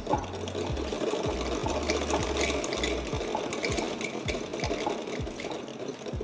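Freshly serviced Usha sewing machine stitching cloth at a steady speed, a fast, even clatter of the needle mechanism.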